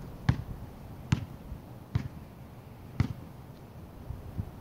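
Basketball bounced on asphalt: four dribbles about a second apart, then a fainter one near the end, over low wind rumble.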